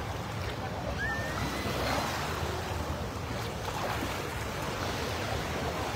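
Small waves washing onto a sandy beach: a steady surf wash with a low rumble under it.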